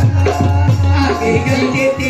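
Live Indian folk music: harmonium holding sustained notes over repeated tabla strokes, with a shaken rattle-like percussion in the mix.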